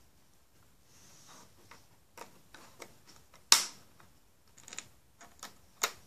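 Scattered small clicks and taps from a plastic rubber-band loom plate and its pegs being handled on a wooden table, with one sharper, louder click about three and a half seconds in.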